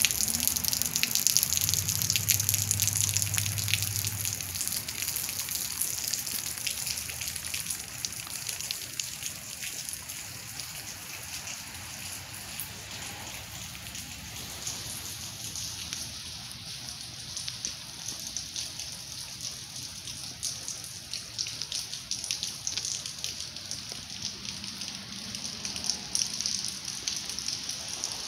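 Wet snow falling steadily, a dense patter of fine ticks on dead leaves and pavement, louder in the first several seconds and then settling to a steady level. A low hum sounds under it for the first few seconds.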